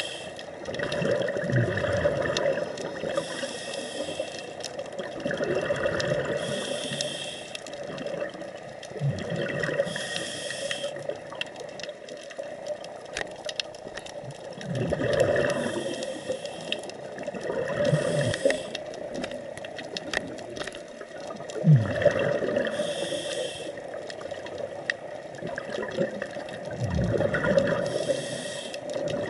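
Scuba diver breathing through a regulator underwater. A hissing inhale alternates with a bubbling exhale, repeating about every four to five seconds.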